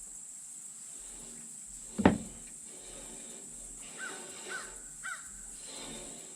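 A crow caws once, loud and harsh, about two seconds in, followed near the end by three short, softer calls.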